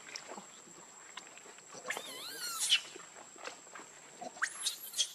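Baby macaque squealing in short, high-pitched cries that rise and fall: one longer wavering cry about two seconds in and a few sharp squeals near the end, while its mother holds it down.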